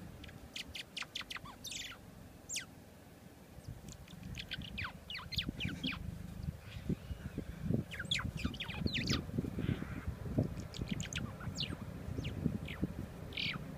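Small birds squabbling on the ground, giving many short, sharp chirps that drop in pitch, in quick series, over a low, uneven rumble.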